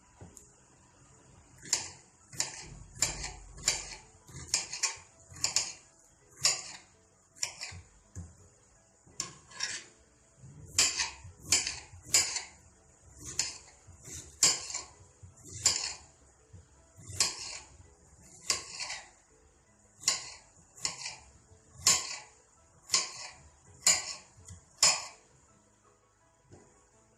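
Onion being finely chopped with a knife on a cutting board: sharp chops at an uneven pace of about one a second.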